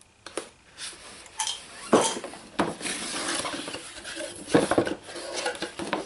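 A cardboard box and its packaging being opened and handled: scattered clicks, knocks and rustling as the lid and contents are moved, with the loudest knocks about two seconds in and near the end.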